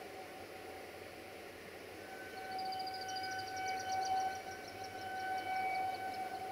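A distant approaching train sounds as a single steady, whistle-like tone. It swells about two seconds in and holds for about four seconds. A high, rapidly repeated chirping trill runs over it.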